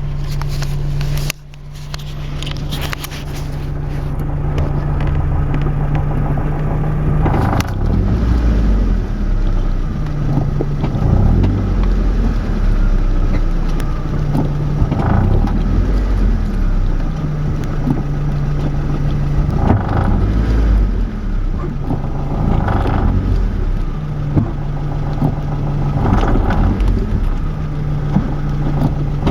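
Nissan S14 on the move with a grinding noise from the driver-side rear wheel area, under a steady running noise with a low hum that comes and goes every few seconds.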